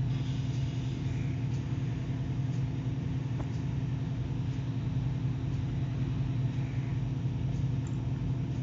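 A steady low mechanical hum, with a faint click about three and a half seconds in.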